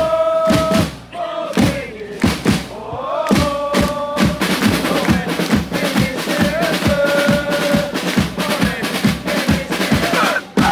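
Football supporters' chant: a group singing a held melody over repeated drum beats.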